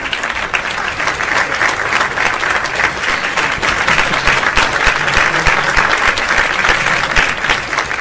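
Audience clapping steadily, a dense crackle of many hands applauding a singer at the end of his song.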